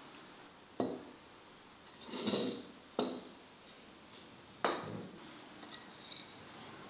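Tableware at a tea table: glass tea cups being set down on a wooden table and a fork scraping and tapping on a china plate. Four sharp clinks and knocks with a short ring, about a second in, around two seconds, at three seconds and near five seconds, then a few faint ticks.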